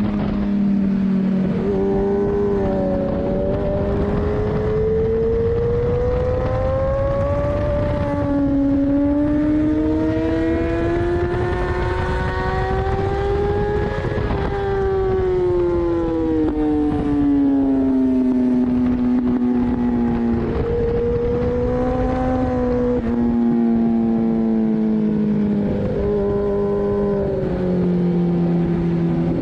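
2014 Kawasaki ZX-10R's inline-four engine at full track pace with wind rush: it accelerates through the gears, its pitch climbing with short drops at each upshift, then falls over the last half as the bike slows, stepping down through downshifts.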